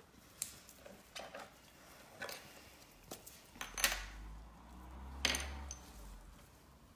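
Scattered light clicks and clinks of small hard objects being handled on a tabletop. The two sharpest come about four and five seconds in, with a low rumble between them.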